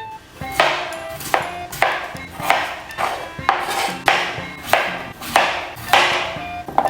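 Background music with short bright notes over a string of sharp knocks, about one every half second to second.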